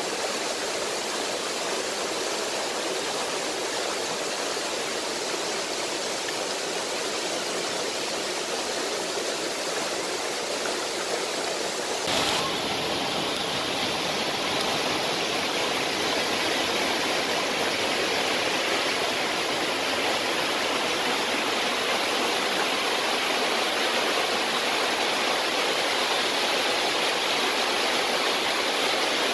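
Steady rushing of running water. About twelve seconds in, a brief click marks a change to a slightly louder, brighter rush that continues.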